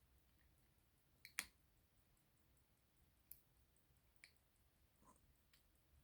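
Near silence broken by a few faint, sharp clicks of small metal tools and watch parts being handled: the loudest is a double click about a second and a half in, followed by three lighter ones a second or so apart.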